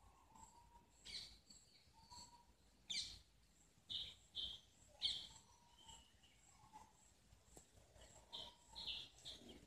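Faint birds chirping: scattered short, high notes, loudest about three and five seconds in, over a thin high note repeating evenly in the background.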